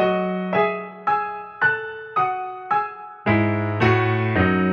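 Background music: a keyboard plays a slow melody, one note struck about twice a second and each fading away, with a deeper bass part joining about three seconds in.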